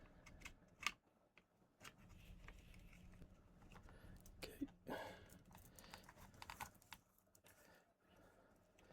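Faint clicks and rustles of small plastic headphone parts and cables being handled, with one sharper click about a second in.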